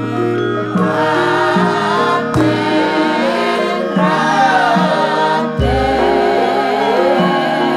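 Javanese gamelan in the slendro scale playing with voices singing over its ringing metal keys; a deep low gong-type stroke sounds twice, about three seconds apart.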